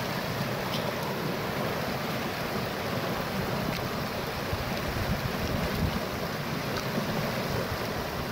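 Fast-flowing floodwater rushing steadily past a low concrete weir, with some wind rumble on the microphone.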